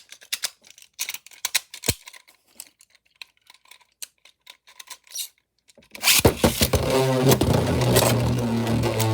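A run of small, irregular plastic clicks, then about six seconds in two 3D-printed Beyblade spinning tops are launched into the stadium and spin with a loud, steady whir, scraping and clacking against each other and the bowl.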